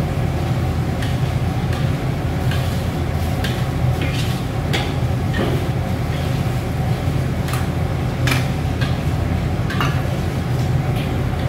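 A wooden spatula stirring and scraping a chunky chicken liver and gizzard sambal goreng around a steel wok, with irregular scrapes and knocks about once a second, over the steady low rushing noise of the gas burner's flame.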